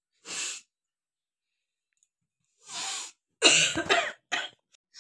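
A person sneezing, brought on by tickling the nose with rolled paper: two short breathy sounds, then a loud sudden sneeze about three and a half seconds in that breaks off into a few short bursts.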